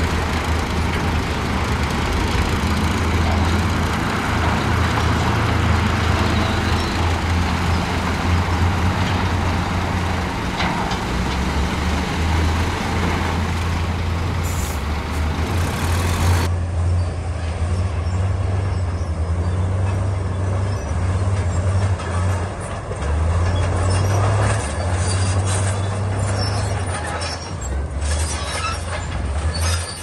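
Heavy diesel engine of earthmoving machinery working, its deep note rising and falling with load under a loud rush of noise. The rushing noise drops away abruptly about halfway through, while the engine carries on.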